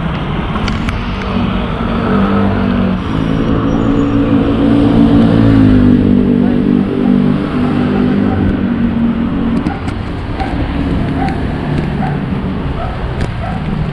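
A motor vehicle's engine running on the road, its note holding steady for a few seconds, dipping in pitch about six seconds in, then fading out around ten seconds. Constant wind and road rumble lies underneath.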